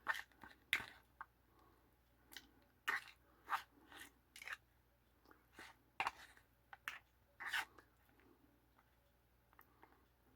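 A person eating ramen dressed with a crunchy chili sauce: chewing, with irregular sharp crunchy clicks.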